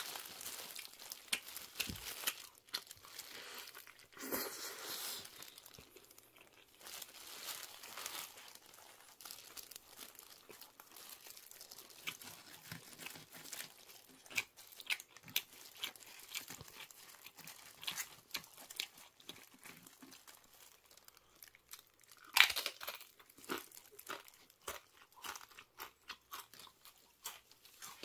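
Close-up crunching and chewing of tortilla chips, a stream of sharp irregular crackles, with occasional crinkling. The crunching is loudest about 22 seconds in.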